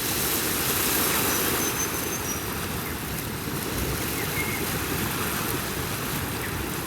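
Ocean surf washing steadily, a continuous rush of breaking waves with a slight swell about a second in.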